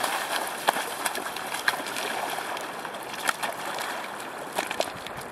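Feet wading and splashing in shallow river water over stones, with the river running steadily and scattered sharp clicks and knocks.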